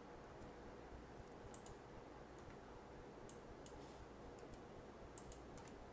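Faint, scattered clicks of a computer keyboard and mouse over low room hiss, with a pair of clicks, a couple more, and then a small cluster near the end.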